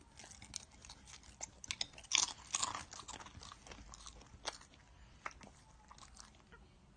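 A dog crunching and chewing a dry, crunchy snack: a run of irregular crunches, loudest about two to three seconds in.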